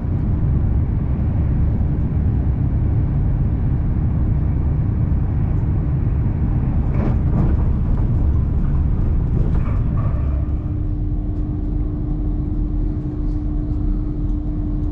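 Hitachi Class 802 express train running at speed, heard from inside the coach: a steady low rumble of wheels on track with a few short knocks around the middle. A steady low hum joins about two-thirds of the way through.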